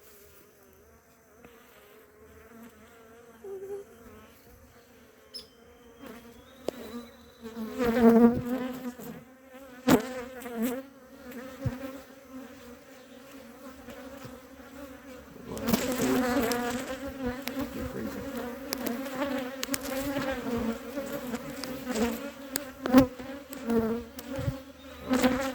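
Honey bees buzzing in numbers around an opened hive, a steady drone that swells loudly about a third of the way in and again past the middle, as the disturbed colony turns defensive. A few sharp knocks cut through the buzz.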